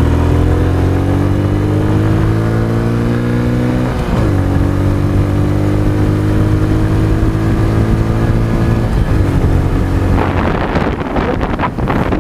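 Honda XRM 125 Dual Sport's single-cylinder four-stroke engine accelerating hard, its pitch rising through the gears with an upshift about four seconds in and another about nine seconds in. Wind rushing over the microphone grows loud near the end.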